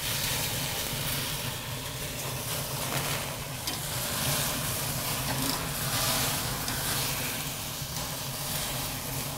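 Steady sizzling hiss of thick ribeye steaks over a hot, flaring fire in a Kamado Joe Big Joe ceramic grill as the steaks are flipped with tongs.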